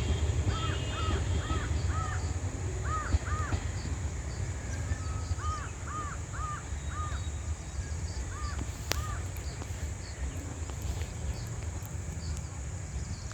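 Crows cawing in short runs of two to four harsh caws, with pauses between the runs, over a low rumble that slowly fades.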